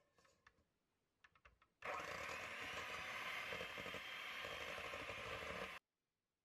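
Electric hand mixer whipping egg whites in a stainless steel bowl. A few light clicks come first, then about two seconds in the motor starts, runs steadily for about four seconds and cuts off suddenly, leaving the whites foamy.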